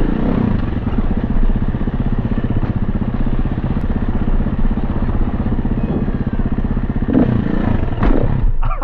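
Dirt bike engine running as the bike is ridden along a dirt trail, close to the microphone, a steady fast run of firing pulses with a few brief louder surges.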